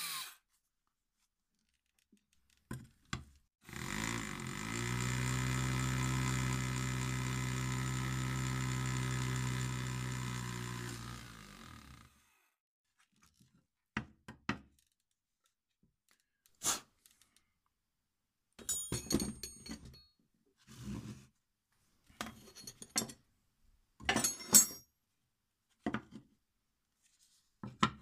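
Cordless drill running a small carbide hole saw through a tile: the motor spins up about four seconds in, holds a steady pitch for about eight seconds while the saw cuts, then winds down. After it come a series of short knocks and clicks as the tile and saw are handled.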